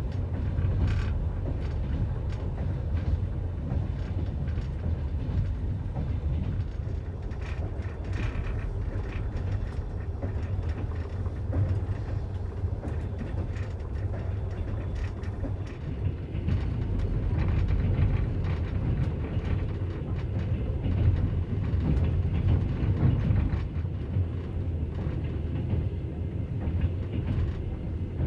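Running noise inside a Soviet-era Ammendorf-built sleeper carriage at speed: a steady low rumble of wheels on rail, with faint scattered clicks and rattles.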